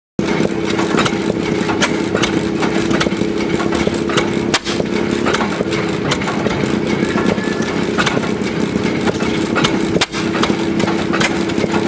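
Sears Economy 9 hp hit-and-miss engine running, with sharp, irregularly spaced beats about every half second over a steady drone.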